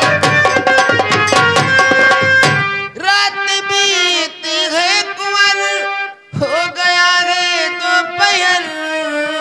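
Folk-theatre (nautanki) music: fast hand-drum strokes under a held melody for the first two and a half seconds, then a high voice singing a slow, wavering line into the microphone, the instruments continuing beneath it.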